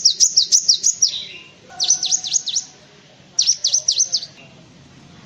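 Cinereous tit (gelatik batu) calling: three quick bursts of high, sharp notes, each note sliding down in pitch, about six notes a second.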